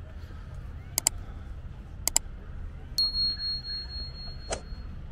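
A single high, bell-like ring that starts sharply about three seconds in and holds steady for about two seconds, after two pairs of sharp clicks.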